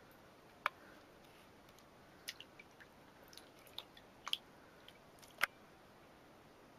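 A cat moving in shallow bathwater: about eight short, faint splashes and drips at irregular intervals.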